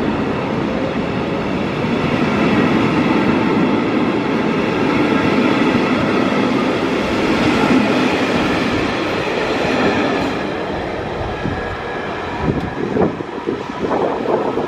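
Passenger coaches of a departing train rolling past at close range: a steady rumble of wheels on rail with faint high ringing tones. The noise eases about ten to twelve seconds in as the last coach clears, leaving a few irregular knocks near the end.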